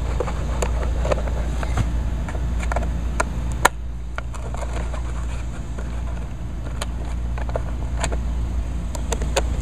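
Screwdriver working out the screws of a chainsaw's plastic air-cleaner cover: scattered small clicks and scrapes of the tip in the screw heads, with one sharper click about three and a half seconds in, over a steady low background noise.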